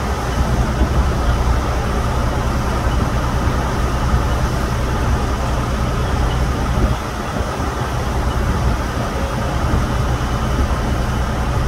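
Fire engines' diesel engines running steadily, driving the pumps that feed charged hose lines, a continuous low rumble.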